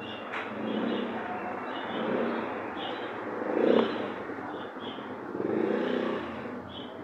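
Street traffic: a rush of passing vehicles that swells and fades several times and is loudest a little past halfway.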